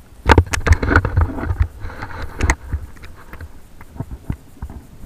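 Handling noise of an action camera: a run of loud, close knocks and clicks over a low rumble, bunched in the first two and a half seconds, then fainter scattered ticks.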